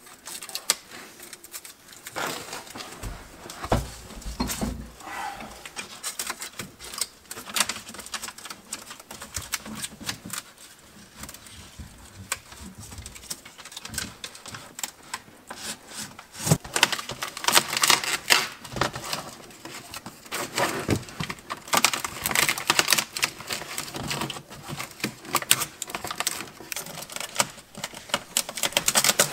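Aluminium foil tape crinkling and crackling as it is handled and pressed onto the seams of a foil-faced insulated box, a busy run of small clicks with a few dull knocks about four seconds in, heard inside a small enclosure.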